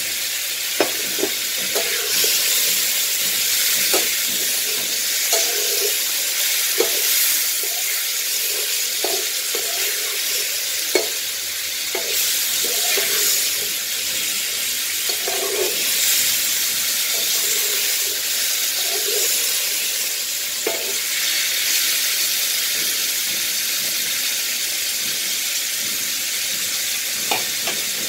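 Raw banana pieces frying in mustard oil with spice paste in a kadai, sizzling steadily, while a spatula scrapes and knocks against the pan at irregular moments as they are stirred.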